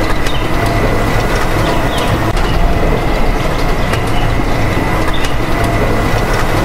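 Small electric motor and gears of a homemade miniature farm machine running steadily: a continuous mechanical noise with a low rumble and a thin high whine.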